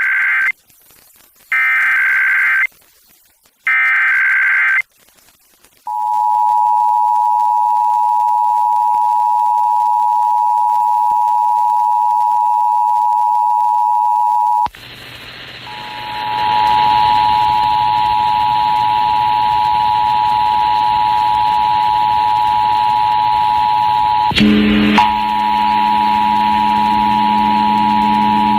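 Emergency Alert System test tones on an FM radio broadcast: three bursts of the SAME digital header, each about a second long, then the steady two-tone attention signal held for about nine seconds. The two-tone breaks off and comes back hissier and narrower in range, with a click about 24 seconds in after which a low hum of several tones runs under it.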